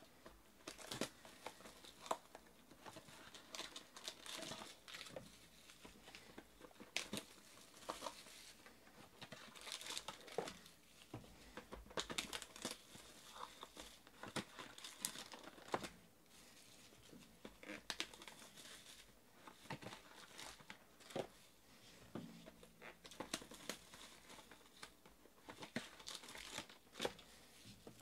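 Clear plastic shrink-wrap crinkling and tearing as it is stripped off trading-card boxes, with foil-wrapped card packs rustling as they are handled; irregular crackles and snaps throughout.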